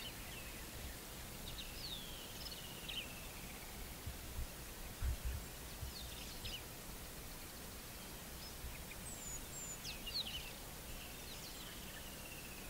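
Outdoor bush ambience: a steady background hiss with wild birds calling. Twice a whistle slides down and runs on into a falling series of notes, with a few short chirps between. A few low thumps come about four to five seconds in.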